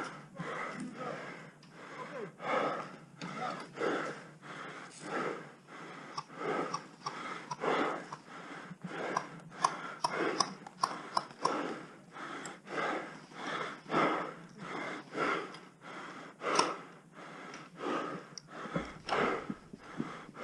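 A player's rapid, heavy breathing close to the microphone, about two breaths a second in a steady rhythm.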